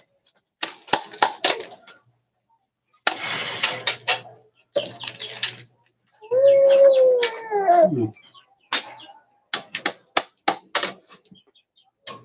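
Hammer tapping a nail through a thin metal sheet, punching grater holes: quick runs of sharp metallic taps near the start and again from about nine seconds in. In the middle, a drawn-out call, the loudest sound, falls in pitch at its end.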